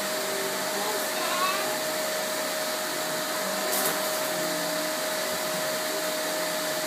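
Vacuum cleaner running steadily: a constant rushing noise with one steady whine through it.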